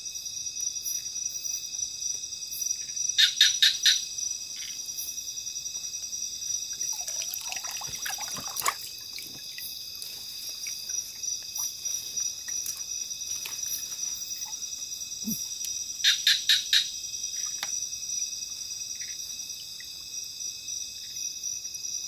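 A steady, high-pitched chorus of crickets and other insects. Twice, a loud animal call of about five quick notes rings out, a few seconds in and again around the middle. Soft splashing and rustling come a little before the middle, as hands work the fish net in the water.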